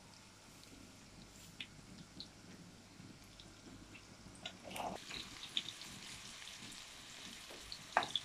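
Food frying in oil in a wok, a faint sizzle, with scattered clicks and scrapes of a metal spatula against the pan that come more often from about halfway through.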